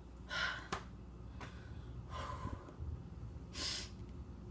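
A woman's breathy exhales and gasps, one about half a second in and a longer, hissier one near the end, with a couple of small clicks in between.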